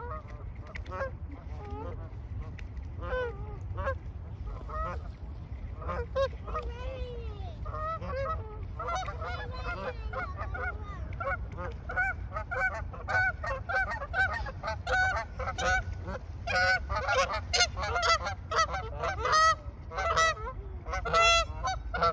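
A flock of Canada geese honking. The calls are sparse at first and become many overlapping honks from about eight seconds in, growing louder and busier toward the end.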